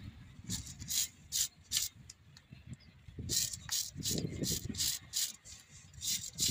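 A hand tool scraping in short, uneven strokes among the engine parts of a mobile crane under top overhaul, about two to three strokes a second. The strokes pause for a second or so partway through, then pick up again.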